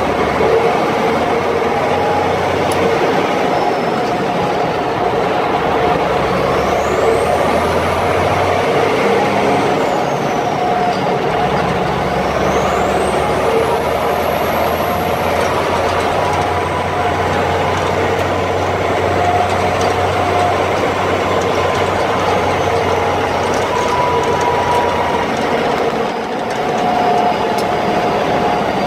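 Cab noise of an M35A2 2½-ton cargo truck driving on the road, heard from inside the cab: its turbocharged multifuel diesel engine and drivetrain run steadily. A faint high whine rises and falls twice, and the noise dips briefly near the end.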